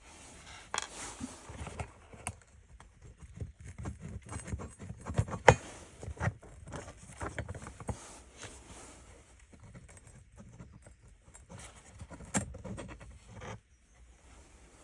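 Small parts of a car light-control switch unit being handled and worked on: an irregular run of small clicks, taps and rattles, with one sharp click about five and a half seconds in, stopping near the end.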